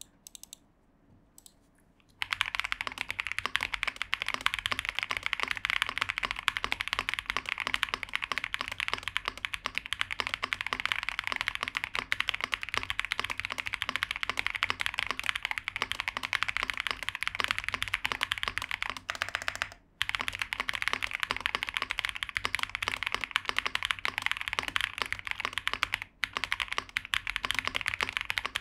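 Typing on an Epomaker RT80 wireless mechanical keyboard, gasket-mounted with a polycarbonate plate: a dense, fast stream of keystroke clacks starting about two seconds in, with two short breaks in the second half.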